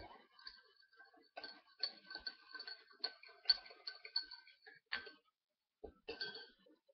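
Metal teaspoon stirring tea in a mug, clinking quickly and repeatedly against the sides with a ringing tone, then a couple of separate taps near the end.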